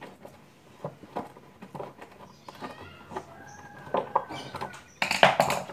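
Scattered light clicks and knocks of parts being handled as an electric car-wash pressure washer is taken apart. A short animal call is heard in the background around the middle, and a louder rough noise lasting under a second comes near the end.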